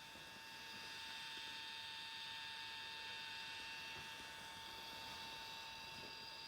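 DJI Osmo X5 handheld gimbal camera giving off a faint, steady high-pitched whine made of several fixed tones over a hiss, swelling slightly about half a second in. This is the unwanted noise the unit makes, which spoils it for filming.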